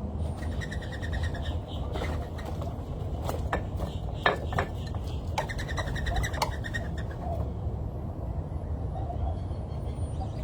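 Wild birds calling at a feeder: a quick run of repeated chirps about half a second in, then a scatter of sharp clicks and taps through the middle, over a steady low rumble.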